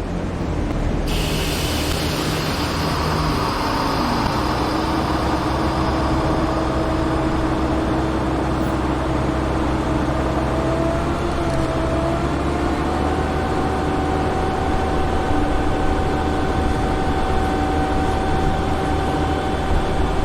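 Strong wind blowing as a loud, steady roar, with a sustained whistling howl whose pitch steps slightly higher partway through.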